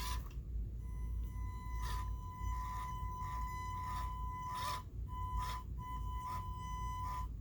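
Small electric motor of an SCX24 RC crawler whining at one steady high pitch under throttle. The whine cuts out briefly twice and stops near the end, with light clicks from the drivetrain and wheels.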